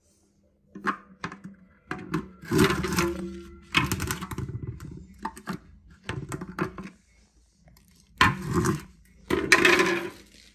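A screwdriver and a stick scraping and knocking caked dust out of a Dyson vacuum cleaner's clear plastic dust bin and cyclone. Irregular scrapes and hard plastic clatters come in a string of bursts, with sharp clicks between them.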